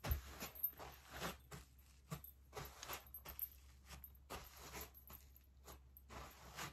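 Footsteps of block-heeled rubber jelly slide sandals (Steve Madden Harlin) on artificial turf: soft crunching, scuffing steps, about two a second.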